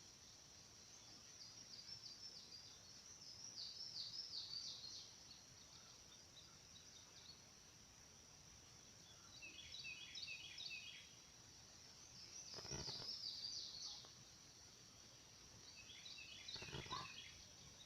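Faint birdsong outdoors: a songbird singing short, quick chirping phrases four times, a few seconds apart, over a steady high insect hum. Two faint knocks come in the second half.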